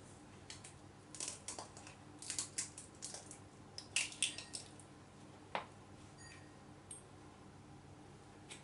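Eggs being cracked and separated by hand: faint, scattered clicks and crackles of eggshell, with one sharper tap about five and a half seconds in.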